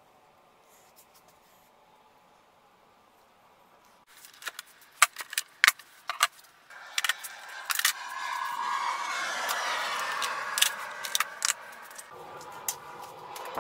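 Near silence at first, then sharp metallic clicks and knocks of C-clamps and a metal strip being handled on a workbench, followed by a steady rushing noise, still broken by clicks, that is the loudest part.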